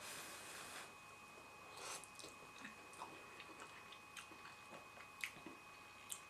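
Faint chewing and mouth sounds of a person eating instant chicken noodles. A soft hiss comes at the start and again about two seconds in, with a few small clicks.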